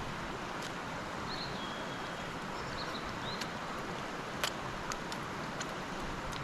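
Steady rush of a mountain stream flowing over rocks, with a few faint bird chirps in the first half and several small sharp clicks later on.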